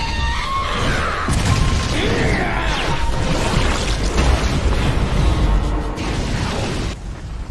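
Anime battle sound effects: a heavy low rumble with crashes and booms, layered over dramatic music. It eases off about seven seconds in.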